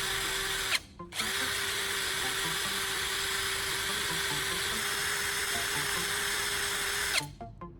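Power drill running at steady speed, spinning a carbon rod against sandpaper with a gritty hiss as the rod is sharpened to a point. It cuts out briefly about a second in, starts again, and stops near the end, leaving faint background music.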